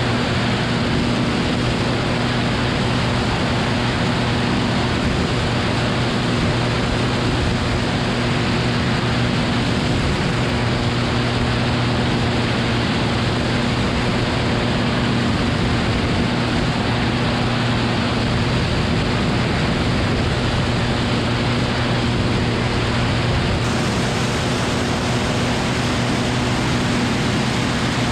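Cessna 180's piston engine and propeller droning steadily in flight, a constant low hum under heavy wind rush from the wing-mounted camera's microphone.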